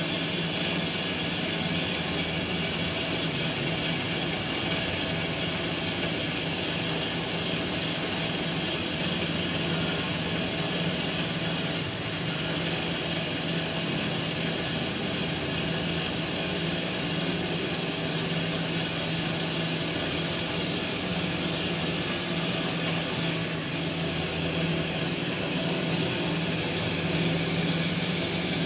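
Metal-cutting band saw running and sawing through a round metal bar: a steady motor hum under the blade's continuous cutting noise.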